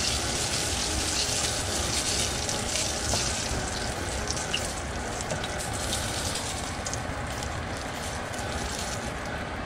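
Breaded fish nuggets shallow-frying in a pan of hot oil: a steady sizzle.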